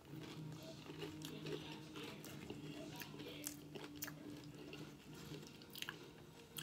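Close-up chewing of loaded nachos made with spicy nacho tortilla chips, with repeated short, crisp crunches. A faint steady low hum sits underneath for the first four seconds or so.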